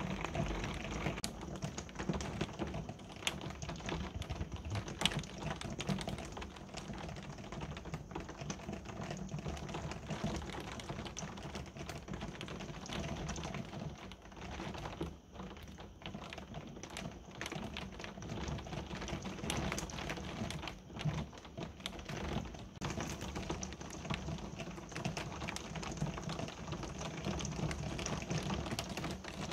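Heavy thunderstorm rain falling: a steady hiss with dense, irregular ticks of drops striking hard surfaces close by.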